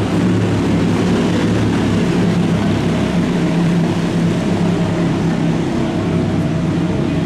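Race car engines running in a steady low drone.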